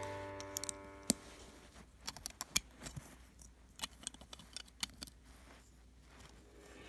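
Plastic Lego bricks being handled and fitted together by hand: a scattered series of light clicks and small snaps, some in quick clusters.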